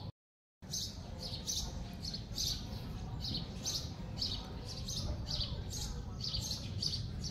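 Small birds chirping repeatedly, short high chirps about two a second, over a steady low rumble. The sound drops out for about half a second just after the start.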